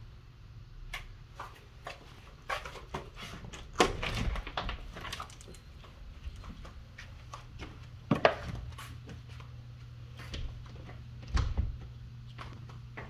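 Footsteps and the knocks and clunks of a door being handled while walking through a doorway, irregular clicks with a few louder knocks spread through, over a steady low hum.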